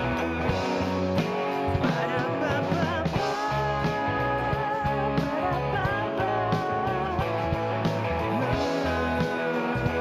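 Rock band music: guitars over a low bass line, with a wavering melody line on top.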